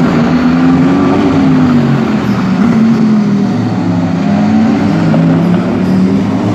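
Race car engines running hard, loud and continuous, their pitch repeatedly rising and falling as they rev and shift.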